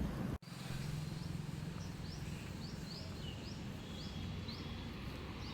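A small bird calling repeatedly in short rising chirps, about two to three a second, over a steady low background rumble. The sound drops out for an instant near the start.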